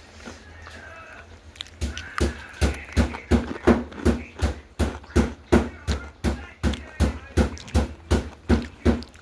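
Chewing close to the microphone: a steady rhythm of dull mouth and jaw knocks, about three a second, starting about two seconds in.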